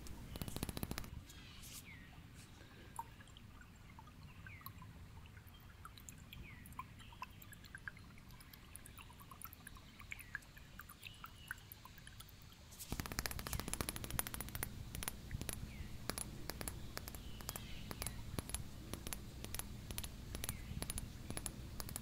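Red liquid sloshing inside a small corked glass bottle, with faint scattered gurgling blips. About thirteen seconds in, the sound grows louder, with a dense run of clicks and taps on the glass.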